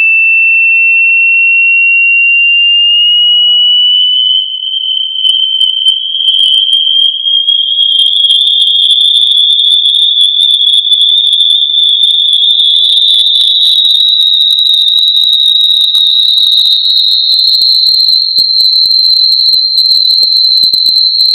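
Hearing-test sine tone sweeping slowly upward: a single high, whistle-like pitch rising steadily through the upper-middle of the hearing range. From about four seconds in it turns rough and crackly, with faint higher overtones over it.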